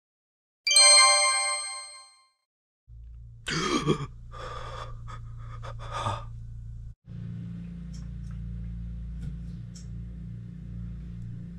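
A bright bell-like ding rings once and fades over about a second. A few seconds later comes a sharp startled gasp, followed by a few shorter breaths. A low steady hum runs underneath from then on.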